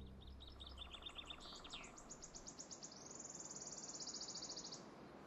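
A small songbird singing faintly: a run of quick, high repeated notes, then a fast, even trill that stops just before the end.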